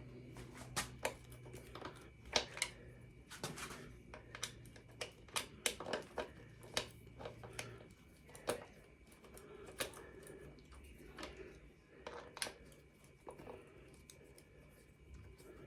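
Irregular sharp metallic clicks and taps of hand tools working on an e-bike's rear disc brake caliper bolts as the caliper is loosened and taken off.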